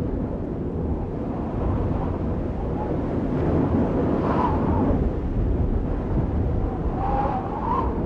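Steady rumbling, wind-like noise that swells slightly, with a faint wavering whistle about four seconds in and again near the end: an ambient outro sound effect under the end card.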